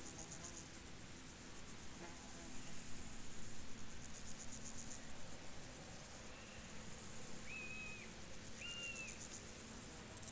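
Crickets chirping in high, finely pulsed trills about a second long, repeating every few seconds. Two short high whistled notes, likely a bird, come about three-quarters of the way through.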